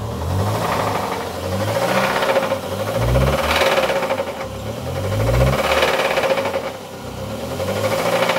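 Ford Zetec Rocam inline-four engine running and being revved up and back down about four times, with an abnormal knocking noise from the engine. The noise is the sign of a worn timing chain, the part replaced on this engine.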